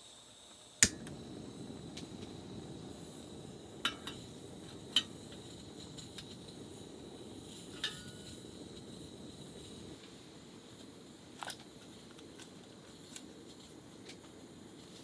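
Camp cooking sounds: a sharp click about a second in, then a steady low rushing, with a few light clinks of dishes and utensils.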